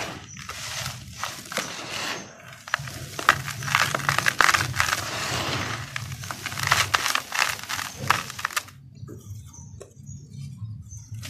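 Hands scooping and crushing dry, crumbly red dirt in a plastic tub, grains and clumps pouring back with a gritty crackle and sharp little crunches. The crackle stops about two-thirds of the way through.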